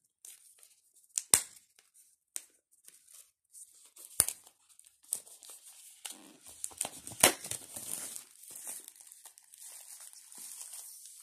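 Clear plastic shrink wrap being torn and peeled off a small cardboard box, crinkling, with three sharp snaps about one, four and seven seconds in, and crinkling plastic through the second half.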